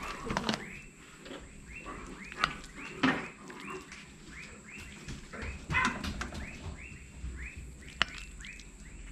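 A small animal's short chirping call repeated about twice a second, with a few sharp clicks of a metal spoon against a china plate.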